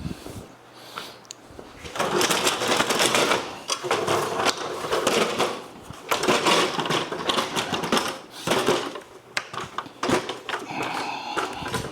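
A stepladder being moved: repeated stretches of clattering and rattling with sharp knocks.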